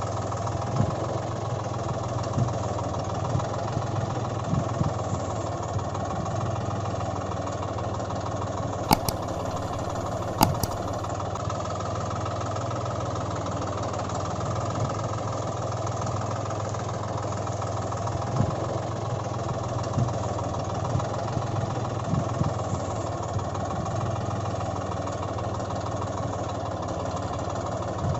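Engine idling steadily, a constant low drone with small irregular knocks. Two sharp clicks come about a second and a half apart, roughly a third of the way in.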